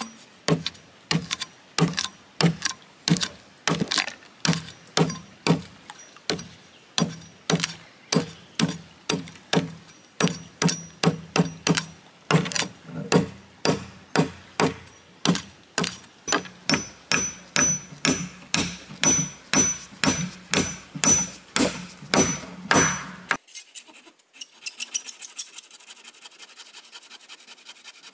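A tool striking wood over and over, about two even blows a second, for some twenty seconds, then stopping. A short stretch of fast, light scraping follows near the end.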